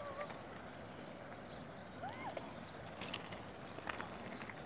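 Outdoor ambience at an asphalt pump track: a steady rushing noise with a few sharp clicks, and a short rising-and-falling call about two seconds in.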